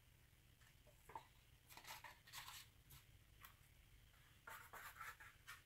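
Near silence with faint rustles and light scrapes of plastic paint cups being handled and set down on a table, in a few short clusters about two seconds in and again near the end.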